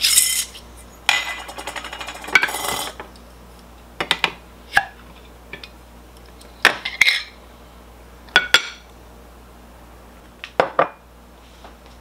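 Metal spoon clinking and scraping against a canning-jar lid and a ceramic plate as the home-canned jar is pried open and the salmon turned out. A rattling scrape in the first few seconds, then short separate clinks every second or two.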